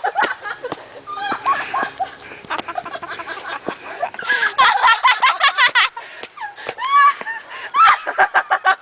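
People laughing hard, in bursts of rapid giggling with high voices, the heaviest runs about halfway through and again near the end.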